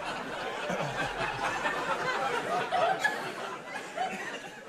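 Studio audience laughing, dying down near the end.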